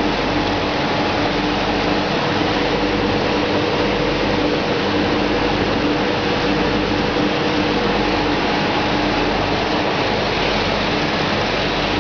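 Small soybean oil mill machinery running steadily: a constant mechanical noise with a steady hum under it.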